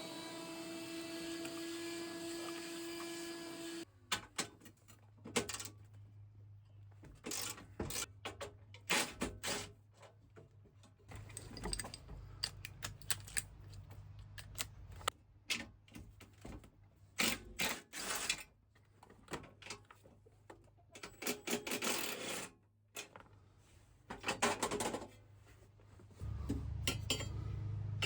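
Tool work on metal: a steady power-tool whir for the first few seconds, then scattered clicks, clanks and rattles of hand tools and metal parts. A low hum comes in near the end.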